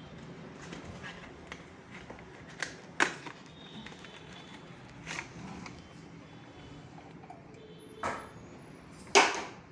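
A new electric calling bell (doorbell) unit being handled, giving a few scattered clicks and knocks; the loudest come about three seconds in and near the end.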